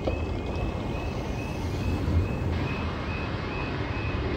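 Level crossing warning alarm sounding a short repeating tone, about two a second, while the road lights flash red, over a steady low rumble.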